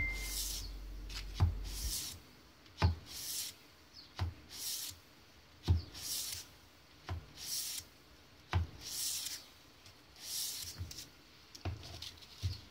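800-grit abrasive paper on a hand sanding block stroked back and forth along an oiled steel knife blade, cleaning up a freshly etched logo. Each stroke starts with a soft knock as the block lands, followed by a short hiss, repeating about once every one and a half seconds.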